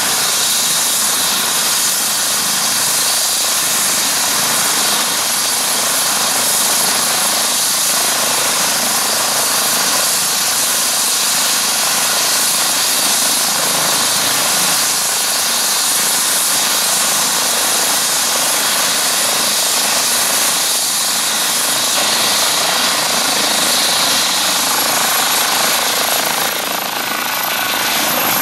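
Eurocopter EC135 helicopter's twin turbine engines and main rotor running steadily on the ground, with a loud, high turbine whine. The whine rises slightly in pitch near the end as power comes up for lift-off.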